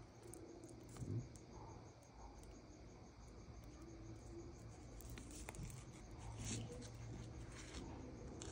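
Faint crinkling and clicking of a foil pouch of machine polish being handled and squeezed, with a small knock about a second in and more crinkling toward the end, over a low steady hum.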